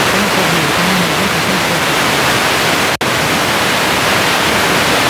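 FM radio static: steady hiss from a phone's FM tuner between stations, with a faint voice from a weak station showing through for the first two seconds or so. The hiss cuts out for an instant about three seconds in as the tuner steps to the next frequency.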